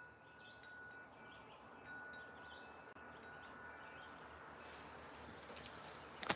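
Faint outdoor background with distant small birds chirping over a steady hiss. There is a sharp click near the end.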